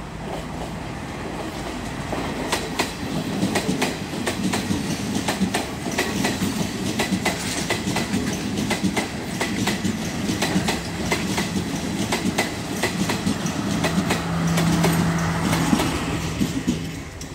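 Class S12 diesel multiple unit passing close by, its wheels clicking in a steady run of knocks over the rail joints, over a low engine hum. The hum grows louder near the end as the rear power car goes by.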